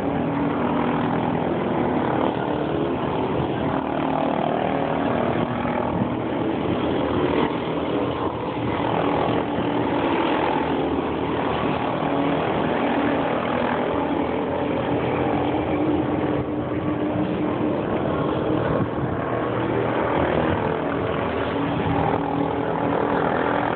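Racing kart engines running on the track, a steady, layered drone of several engine notes overlapping and shifting in pitch as the karts accelerate and lift off.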